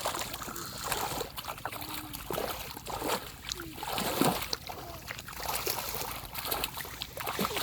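River water splashing and sloshing irregularly as someone wades and gropes for fish by hand, with the biggest splash about four seconds in.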